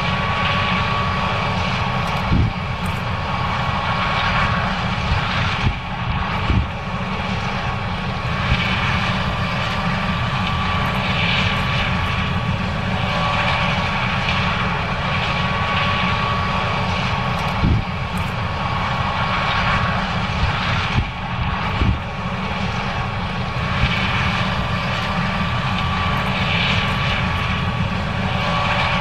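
John Deere 9610 combine running steadily while harvesting corn: a constant six-cylinder diesel and machinery drone with a steady whine over it. A few brief thumps come through along the way.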